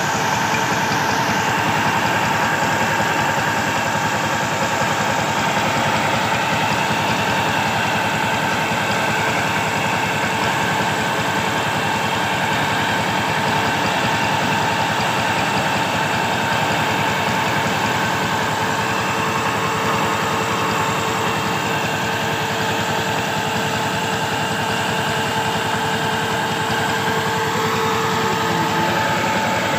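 A 15 hp power tiller's single-cylinder diesel engine running steadily, belt-driving an irrigation water pump, with water gushing out of the pump's outlet pipe.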